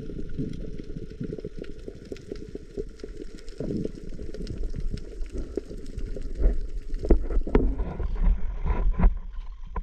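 Muffled underwater sound with fine crackling. About seven seconds in it gives way to wind buffeting the microphone and sea water slapping against a small wooden outrigger boat, with a few knocks.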